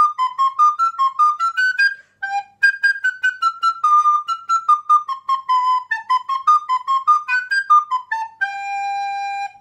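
Descant recorder playing a quick melody of short detached notes, with a brief break about two seconds in, then settling on one long held low note near the end that closes the piece.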